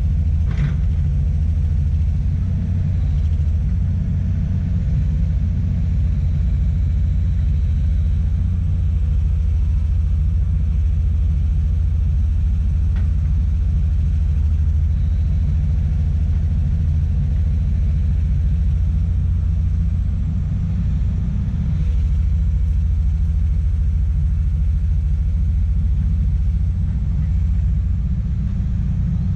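Excavator's diesel engine running steadily under work, a continuous low rumble.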